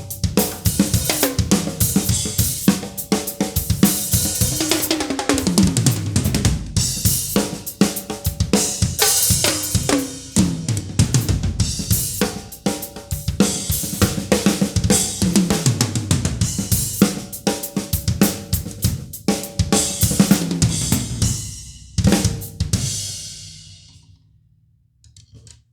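Drum kit being played: a steady beat of snare, bass drum, hi-hat and cymbals, with fills that run down the toms. Near the end the playing stops on a final hit whose cymbal rings out and fades.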